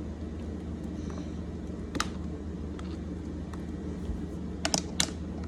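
A few sharp clicks from plastic fidget toys being handled, one about two seconds in and a quick cluster near the end, over a steady low hum.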